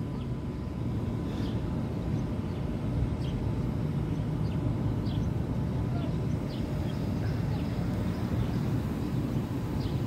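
Steady low outdoor rumble with a faint steady hum, and faint short high chirps scattered through it.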